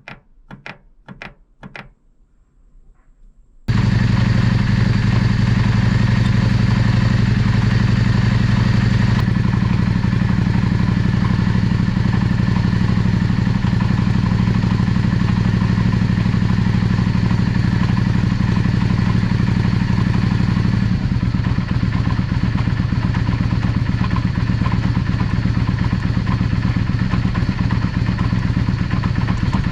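A few light clicks, then about four seconds in a Yamaha Drag Star V-twin motorcycle engine starts and runs steadily at idle.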